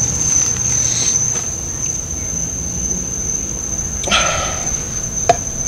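Steady high-pitched chirring of night insects such as crickets, with a short breathy sound about four seconds in and a single sharp click near the end.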